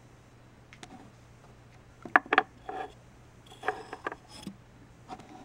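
Wooden peg dolls being handled and set down on a wooden surface, clacking and tapping. There are a few sharp knocks, the loudest pair about two seconds in and another cluster near the end.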